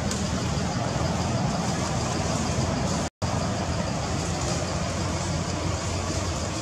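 Steady outdoor background noise with a low rumble, cut off by a brief silent gap about three seconds in.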